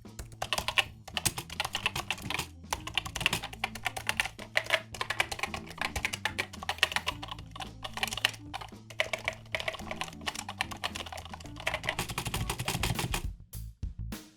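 Fast typing on a computer keyboard, a dense clatter of keystrokes that stops near the end, over quiet background music.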